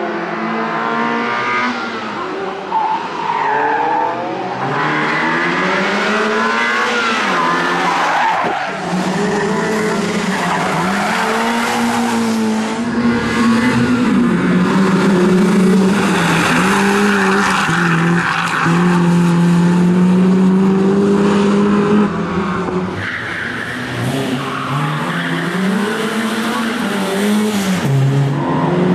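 BMW E30 318is four-cylinder engine driven hard, its pitch climbing and dropping again and again through gear changes and lifts, with tyres squealing and skidding through the corners. The squeal is loudest about two-thirds of the way in.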